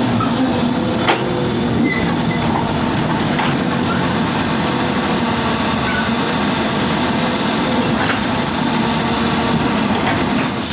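Komatsu PC200 hydraulic excavator's diesel engine running steadily under work, with a few light knocks, the sharpest about a second in.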